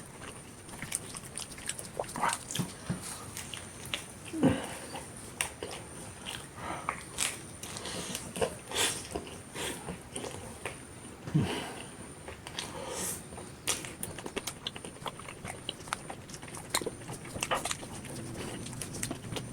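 Close-miked eating of a tortilla wrap with beef rendang: irregular chewing and biting, with wet mouth smacking and small clicks. The two loudest mouth sounds come about four and a half and eleven and a half seconds in.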